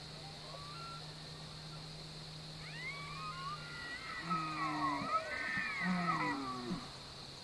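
Bull elk bugling, the rutting call: high whistling notes that slide up and down over lower grunting notes, starting about three seconds in and ending shortly before the end.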